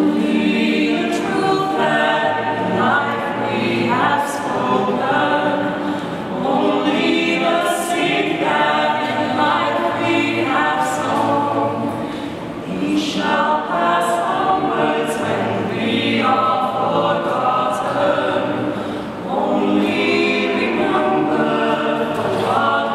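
Mixed vocal quartet, two men and two women, singing a cappella in harmony, in phrases with brief dips in loudness between them.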